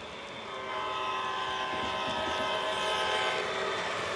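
O gauge CSX Dash 8 model diesel locomotive sounding its electronic horn in one long blast, beginning about half a second in and fading near the end, as it approaches and passes. Its wheels click on the track beneath the horn.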